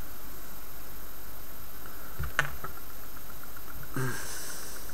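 Small handling noises over a steady background hiss: a sharp click about halfway through, then a short rustle near the end as fine nichrome and silver wire is handled between fingers. A faint rapid ticking runs under it from about two seconds in.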